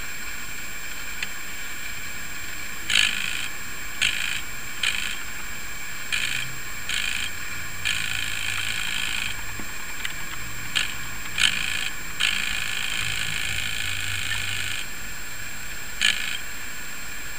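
Brass gear train of a Schatz 400-day clock movement whirring and rattling in short, irregular bursts, two of them lasting a second or more, over a steady hiss.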